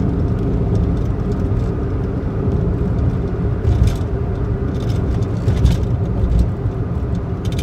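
Steady road and engine noise heard inside a moving car's cabin, a low rumble with a faint hum. A few brief clicks or knocks sound at scattered moments.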